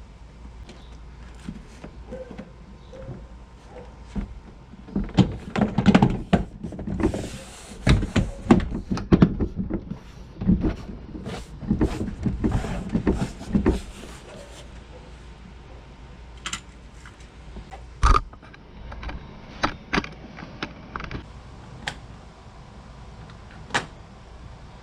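Irregular clicks, knocks and rattles of hands working on the liftgate's plastic trim and clips, busy in the middle stretch, then a few single knocks with one sharper knock later on.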